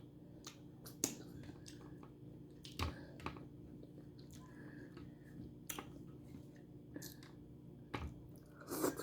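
Eating head-on shrimp up close: irregular sharp clicks and smacks of mouth and shell, about one every second, over a faint steady hum.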